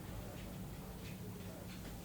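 Faint light clicks, a few a second and unevenly spaced, over a steady low hum.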